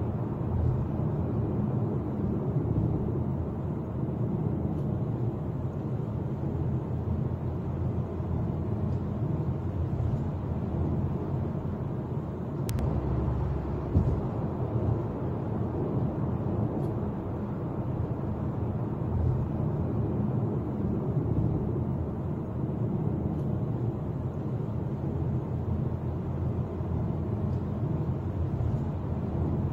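Steady road and engine noise of a car driving at cruising speed on an asphalt highway, heard inside the cabin through a dash cam's microphone. A single sharp click comes about halfway through, with a small bump just after.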